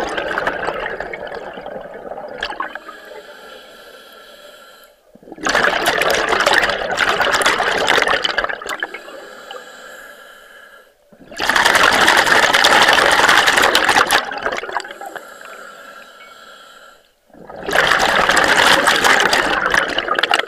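A diver breathing underwater through a scuba regulator, exhaling a loud rush of bubbles about every six seconds. Each exhalation lasts about three seconds, with quieter stretches between breaths.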